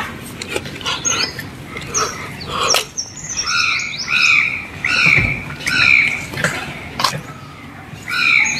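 A bird calling over and over, a run of short, downward-curving calls about two a second, with a pause before it starts again near the end. A few sharp knocks are heard, the loudest at the very start.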